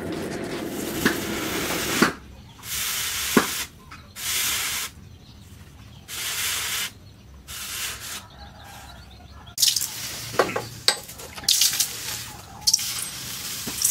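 Red-hot leaf-spring steel axe head being quenched to harden it: it is dipped into a water trough several times, and each dip gives a sharp hiss of boiling water and steam, with a few metal clinks from the tongs. Before the first dip, about two seconds of a coal forge fire burning with a steady rush.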